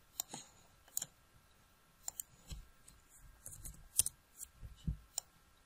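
Computer mouse clicks and keyboard keystrokes, about a dozen sharp clicks at uneven intervals, with two dull low thumps, one about halfway through and one near the end.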